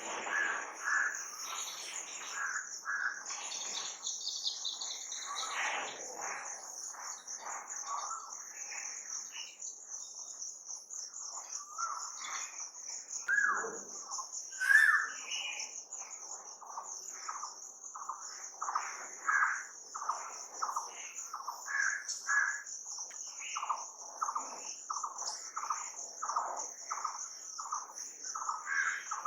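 Crickets trilling in a steady high-pitched drone, with birds repeatedly calling and chirping over it throughout. The loudest call comes about halfway through.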